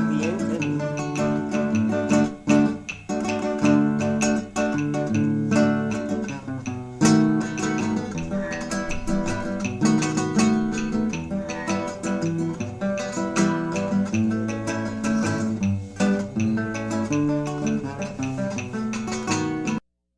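Instrumental ending of a Cuban bolero: acoustic guitars plucking and strumming a lively accompaniment with no voice. The music cuts off suddenly just before the end as the track finishes.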